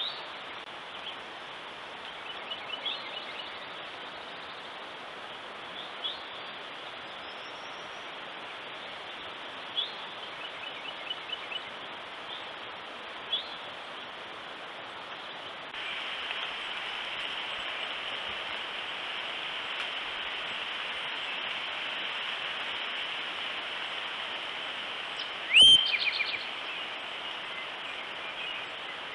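Outdoor ambience through a trail camera's microphone: a steady hiss with short bird chirps scattered through the first half. The hiss gets louder about halfway through. Near the end comes one loud, sudden, sharp sound with a quick falling sweep and a few fast echoing repeats.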